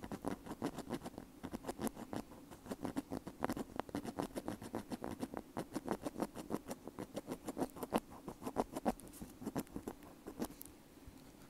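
Bamboo ear pick scraping against a wired earbud: fast, crisp scratchy clicks, about five a second, thinning out near the end.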